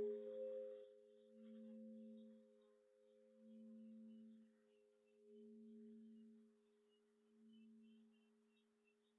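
Faint ringing of a struck meditation bell dying away: the upper tones fade within the first second, leaving a few lingering tones and a low hum that swells and fades in slow pulses about every two seconds.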